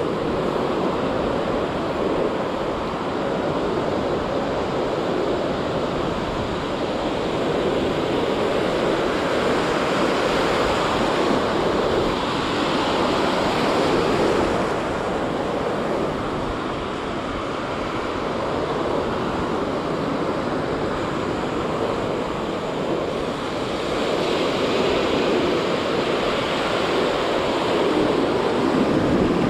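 Ocean surf breaking and washing close around in shallow water: a steady rush of foaming water that swells and eases with the waves.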